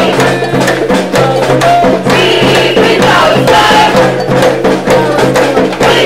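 Protest drumming, with a steady beat and rattles, while voices chant over it and a steady low drone sounds underneath.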